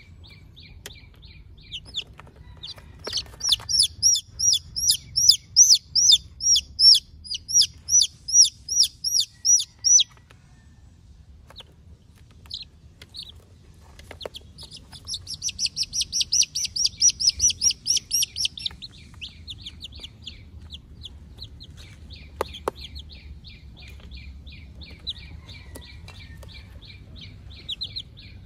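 Young chicks peeping: high, quickly falling peeps, about two or three a second, in two loud bouts with fainter peeping between and after. A few short plastic clicks as the toy cage is handled.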